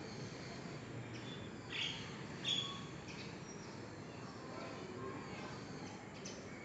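Small birds chirping: two short, louder chirps about two and two and a half seconds in, over faint twittering.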